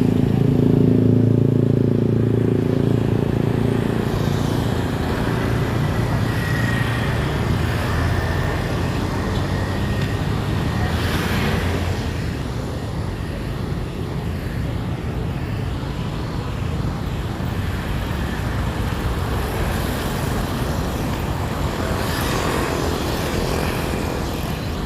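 Street traffic going by: car and motorcycle engines and tyre noise, with a vehicle's engine running close by for the first few seconds before it fades into a steady traffic hum.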